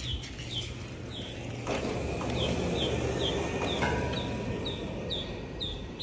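An electric vehicle winch runs with a low rough drone from a couple of seconds in, with a faint whine joining later, as it pulls the car onto the flatbed. Over it a bird repeats a short falling whistle about twice a second.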